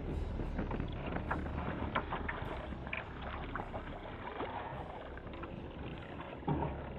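Sea kayak paddling: paddle blades splashing in the water over wind rumbling on the microphone, with a single knock about six and a half seconds in.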